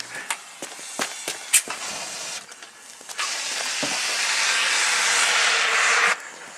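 A road flare burning inside a microwave: scattered crackles and sputters over a hiss, then a louder steady hiss for about three seconds that cuts off abruptly.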